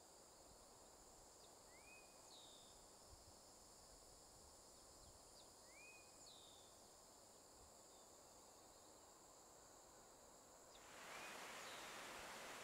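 Faint woodland ambience: a steady high insect drone, with a bird giving a short rising call every four seconds or so. About eleven seconds in, the steady rush of a waterfall comes in and is louder than the rest.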